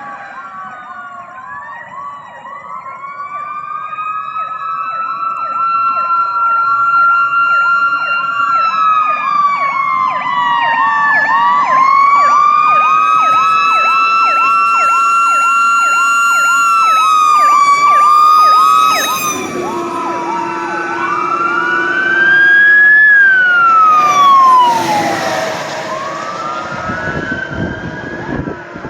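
Fire truck sirens sounding together: a slow rising-and-falling wail over a fast, rapidly repeating yelp, growing louder over the first several seconds. Past the middle a steady lower tone joins for a few seconds, and one siren winds down in a long falling sweep.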